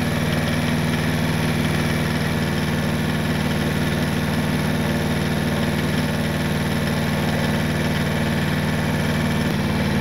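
Compact loader tractor's engine running steadily as it drives along, a constant drone at an unchanging pitch.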